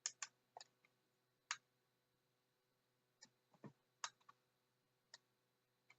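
About a dozen sharp clicks in irregular clusters from a Sailor Moon alarm clock being handled and its buttons pressed to set off the alarm.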